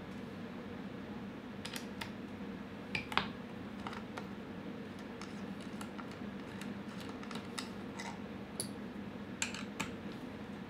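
Scattered light clicks and taps of hands handling a Walther Rotex RM8 air rifle's wooden stock and trigger guard while taking the stock off, over a steady low hum. A few sharper clicks come about three seconds in and again near the end.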